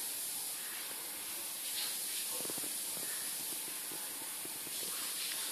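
Steady hiss of room tone, with a few faint soft knocks a little over two seconds in.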